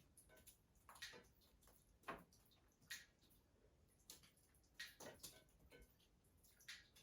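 Faint water drips in a flooded cellar: short, sharp ticks at irregular intervals, roughly one a second.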